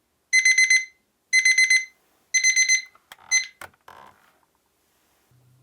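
Digital alarm clock beeping: three bursts of four rapid high beeps about a second apart, then a fourth burst cut short by a couple of clicks, after which the beeping stops.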